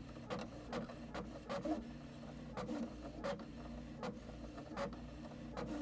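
A machine running with a steady whir and sharp mechanical clicks about every half second, unevenly spaced.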